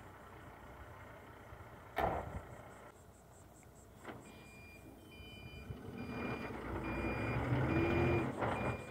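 Tipper truck's cab door shutting with a sharp bang about two seconds in. From about four seconds in its reversing alarm beeps steadily, roughly once every 0.8 s, while the diesel engine grows louder as the loaded truck backs up.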